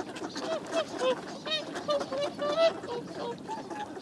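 A flock of whooper swans calling at close range, many short honking calls overlapping one another, with ducks quacking among them.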